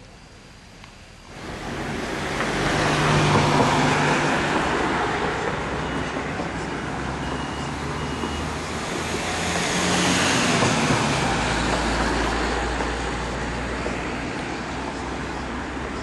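Vehicle noise: a loud rushing sound that builds after a moment's quiet and swells twice, over a low steady hum, with a few short high beeps midway.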